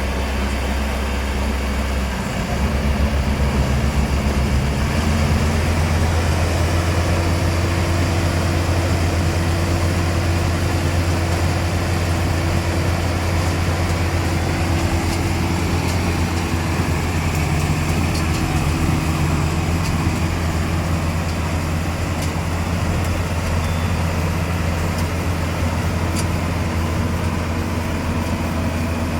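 Rice combine harvester engine running steadily under load, with a strong low hum. About two seconds in, the engine note rises and grows louder, then holds.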